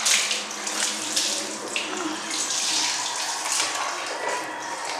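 Water poured over a baby's head, splashing onto the tiled floor in several surges.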